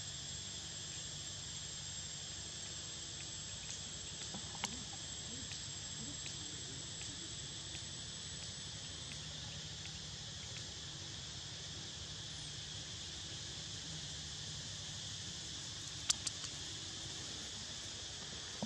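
Steady chorus of forest insects: a high, even tone that stops about nine seconds in over a constant lower buzz. A single sharp click about four and a half seconds in, and a quick run of clicks near the end.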